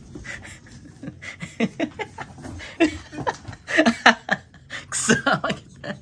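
A person laughing in short, breathy chuckles, with louder bursts in the second half.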